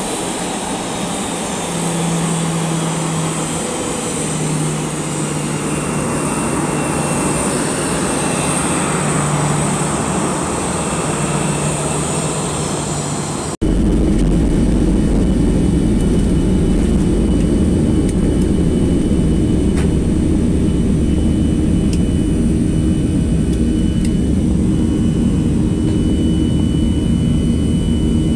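Jet engine noise out on the airport apron, with a high whine that falls slowly in pitch. About halfway through it cuts to the inside of a Boeing 737 cabin by a window over the wing, where the CFM56 turbofan engines run at takeoff thrust: a heavy, steady rumble with a high whine as the plane rolls down the runway and lifts off.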